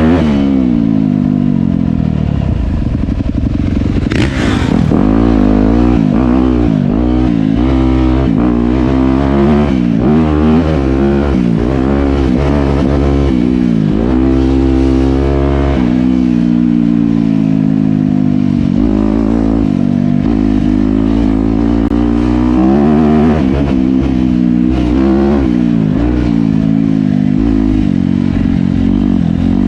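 Dirt bike engine being ridden on an off-road trail, its pitch rising and falling over and over as the throttle is opened and closed.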